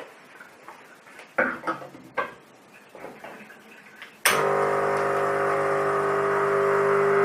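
A few knocks and clatters of a metal portafilter being handled and locked into the group head. About four seconds in, an espresso machine's pump starts with a sudden steady buzz, pumping plain water against a blanking disc in a backflush of the group head.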